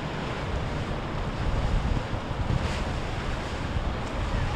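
Wind blowing across the microphone over the wash of water churned by passing boats' wakes.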